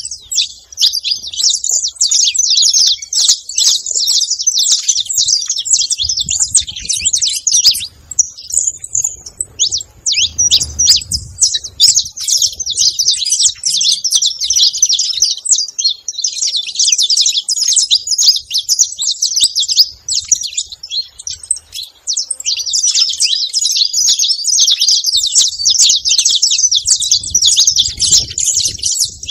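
A feeding flock of saffron finches chirping constantly in a dense, high-pitched chatter of many overlapping short calls, thinning briefly twice.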